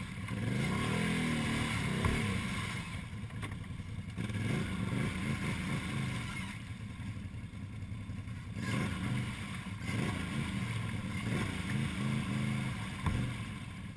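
ATV engine revved in repeated surges as the quad sits stuck in a deep mud hole, its wheels spinning and churning through mud and water.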